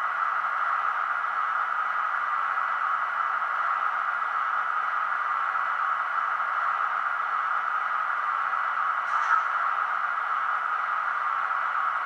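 Zimo sound decoder in a Roco H0 model of an SBB Re 4/4 electric locomotive, playing a steady running sound through its small loudspeaker, with no deep bass. There is a brief change about nine seconds in.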